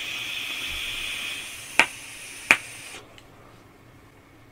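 Steady hiss of vape devices being drawn on, air pulled through the atomisers, which fades out about a second and a half in. Then come two sharp clicks close together, the loudest sounds.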